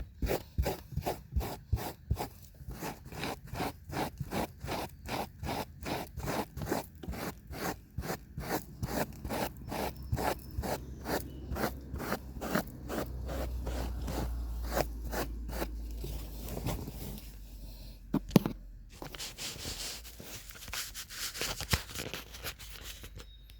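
Brush scrubbing car carpet in quick, even back-and-forth strokes, about two to three a second, giving way to softer, hissier rubbing near the end, with a single sharp knock late on.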